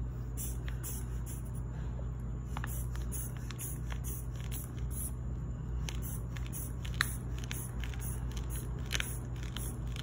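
Rubber hand bulb of a Welch Allyn aneroid sphygmomanometer being squeezed again and again to inflate the blood-pressure cuff, giving short hisses of air about twice a second, with a few small clicks over a steady low hum.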